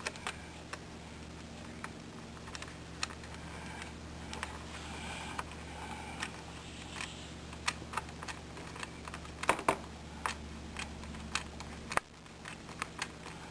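Scattered small clicks and taps of a screwdriver and a tiny screw against a laptop's plastic screen bezel as the screw is put in and driven, with a few sharper clicks about two-thirds through and near the end, over a faint steady hum.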